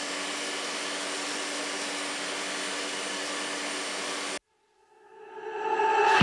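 Bosch GTS 10XC table saw running with no load, its universal motor and spinning blade giving a steady whine with a rush of air. It cuts off suddenly about four seconds in, and a swell of music rises near the end.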